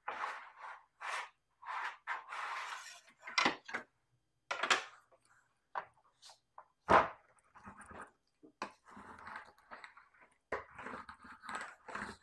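Irregular hand-work sounds: short scrapes, clinks and knocks with pauses between, and one loud, sharp knock about seven seconds in.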